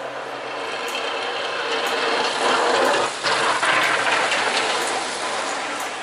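A vehicle passing on the slushy, snow-covered street: its noise swells to a peak about three seconds in, then fades, with a rattling, clattering edge.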